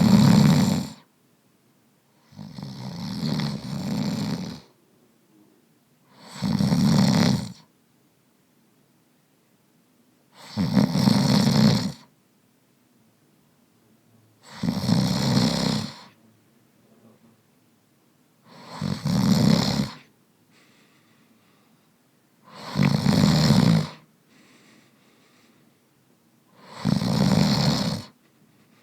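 A man snoring in steady rhythm: eight loud, rasping snores, each one to two seconds long, about every four seconds, with quiet breathing between them.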